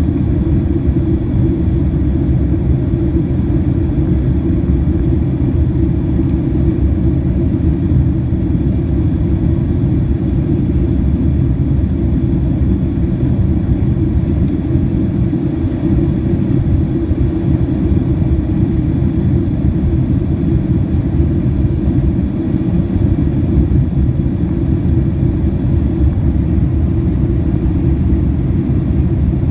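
Steady low rumble of a Boeing 767-300ER's engines heard inside the passenger cabin, holding even without rising or falling.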